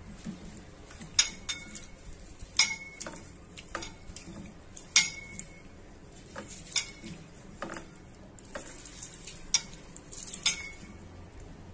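Rice being washed by hand in water in a stainless-steel bowl, with a soft swishing of grains and water. About eight sharp clinks against the steel bowl are scattered through it, and after the loudest ones the bowl rings briefly.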